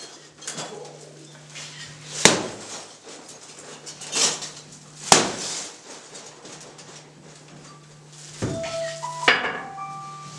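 A long stick striking hard objects: four sharp, loud knocks spaced a few seconds apart, over a steady low hum. Near the end come a few short, steady whistle-like tones.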